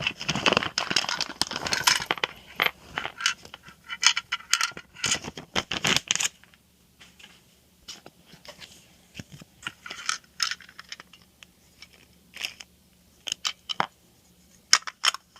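Plastic bag crinkling as small plastic parts are unbagged, for about the first six seconds, then scattered light clicks and taps of the plastic pieces and hardware being handled.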